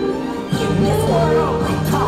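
Fireworks show soundtrack music, soft for the first half second, then a louder section cuts in with sustained and gliding melodic lines.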